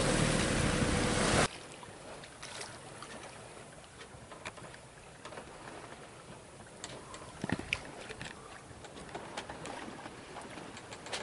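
Wind on the microphone and water rushing along a sailboat's hull, cutting off abruptly about a second and a half in. A quieter stretch of water lapping and small splashes against the hull follows.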